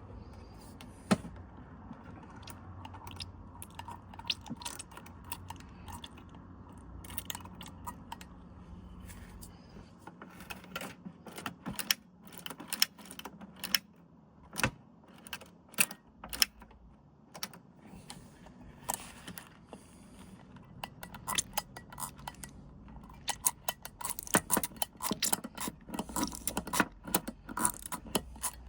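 Metal linkages and parts of a Teletype Model 35 typing unit clicking and clinking as the mechanism is handled and moved, in irregular clusters that grow busier near the end, over a steady low hum.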